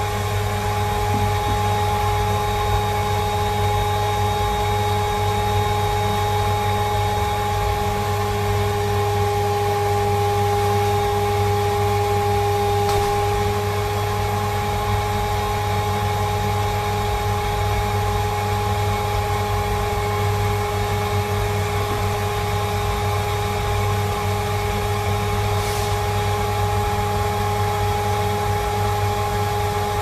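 Siemens Synchropower vacuum cleaner running steadily, its wand nozzle sucking at a fur foxtail on the floor, with a steady motor whine over the airflow rush.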